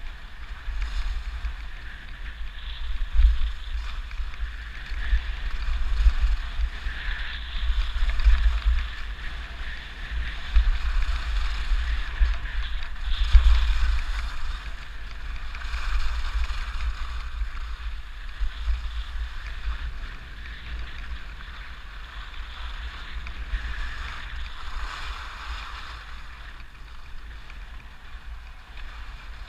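Skis hissing and scraping over packed snow through a series of turns, with wind buffeting the helmet- or chest-mounted GoPro's microphone in low gusts. Both ease off over the last several seconds as the skier slows.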